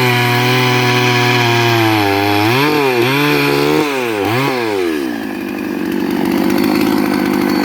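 Two-stroke chainsaw running at high speed, its pitch dipping and recovering several times as it cuts planks from a log. About five seconds in it drops back to idle.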